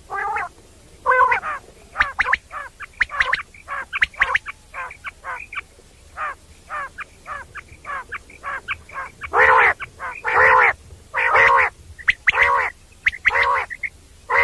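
Common quail calling: a quick run of short, repeated notes, then louder, fuller calls about once a second from about two-thirds of the way in.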